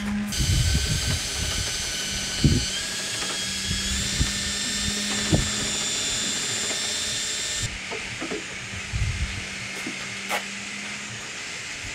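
Power drill with a mixing paddle stirring a bucket of one-part polyurethane boat paint, boxing several gallons together so the colour stays even. The motor whine steps up in pitch twice as it speeds up, stops after about seven and a half seconds, and a few light knocks follow.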